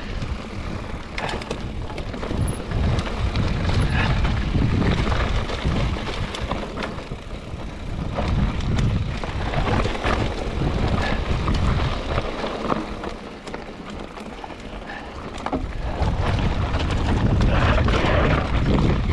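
Mountain bike riding a dirt trail: wind rushing over the microphone, tyres rolling on dirt and the bike rattling over bumps. It eases off for a couple of seconds about two-thirds of the way through, then picks up again.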